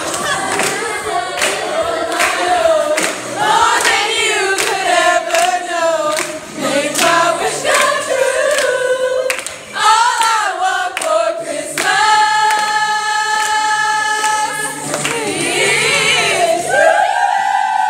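A group of women singing together and clapping along to a steady beat. About two-thirds of the way through, the clapping stops and the voices hold a long note.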